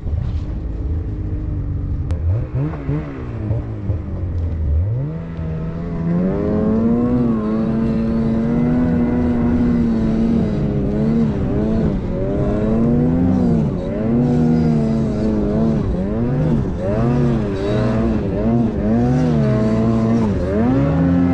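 Snowmobile engine revving hard under load, towing a dead sled uphill. Its pitch climbs over the first few seconds, then holds high with repeated dips and surges as the throttle is worked.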